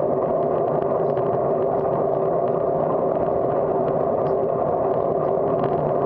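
Steady, muffled rushing of wind and road noise on a moving bicycle, picked up by a camera mounted on the handlebars, with a faint steady hum running through it.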